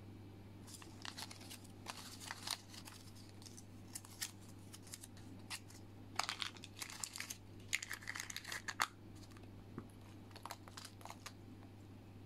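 Crinkling and rustling of plastic packaging and a paper capsule insert being handled, in short irregular crackles through most of the stretch, thickest near the middle, over a steady low hum.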